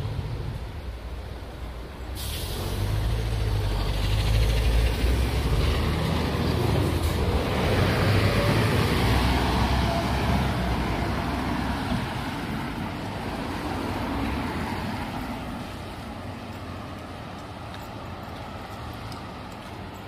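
A heavy lorry passes on a wet road: a sudden hiss about two seconds in, then its engine rumble and tyre hiss swell, loudest around eight seconds in, and fade away.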